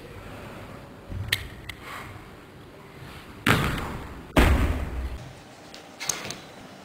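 One-arm kettlebell snatches: a few sharp clicks, then two loud bursts a little past halfway, the second a heavy thud. Another click follows near the end.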